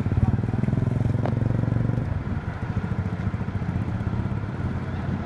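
Bus diesel engine running with a low, steady throb, loudest in the first two seconds and easing off as the bus pulls away; the recording is muffled.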